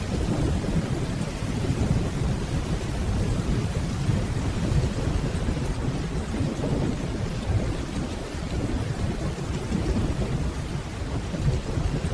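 Steady rainfall, with a low rumble of distant rolling thunder underneath.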